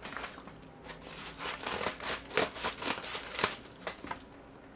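Scissors cutting open a paper mailer envelope, the paper crinkling and rustling as it is handled. It comes as a run of short crisp crackles and snips, busiest in the middle.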